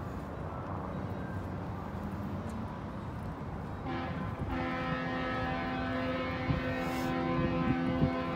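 Rain and city background noise, joined about four seconds in by a steady, unwavering hum from an engine or machine that holds the same pitch throughout.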